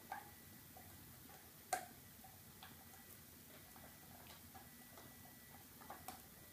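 Dog gnawing a chew stick held between its paws: faint, irregular clicks of teeth on the chew, with a couple of sharper clicks in the first two seconds.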